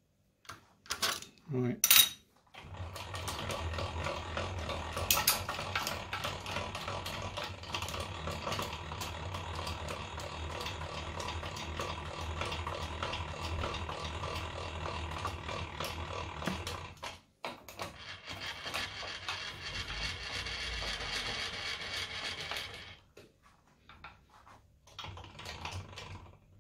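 Two sharp metallic knocks, then a milling machine running steadily with a low hum for about fourteen seconds. It stops briefly and runs again for about five seconds before it goes quiet.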